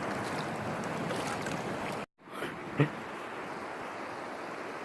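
Boise River water rushing, a steady noise that drops out abruptly for a moment about two seconds in, then carries on a little quieter, with a single short knock soon after.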